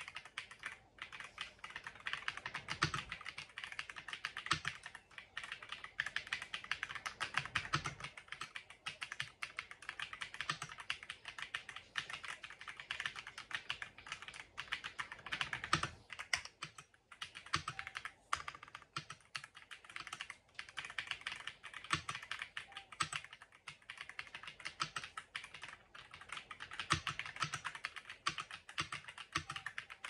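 Continuous fast typing on an Ajazz AK820 Pro mechanical keyboard with Akko Neon keycaps: a dense stream of key clacks, with a deeper, heavier stroke every few seconds.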